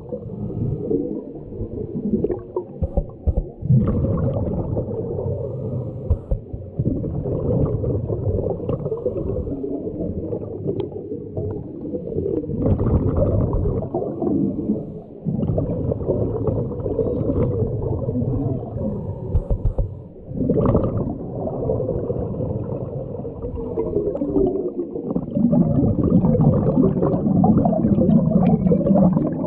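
Muffled underwater sound of scuba divers breathing through their regulators, a continuous low gurgling rumble with louder surges as exhaled bubbles stream out.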